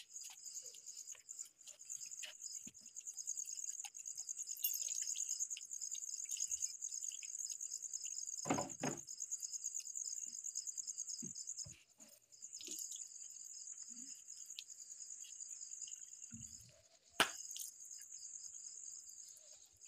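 Crickets chirping in a steady, high, pulsing trill, with a couple of brief soft knocks at about nine seconds and again near the end.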